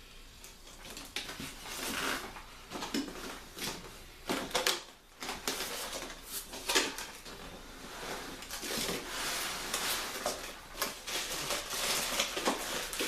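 Packaging being handled and pulled at while a stubborn package is forced open: irregular rustling, scraping and sharp knocks and clicks.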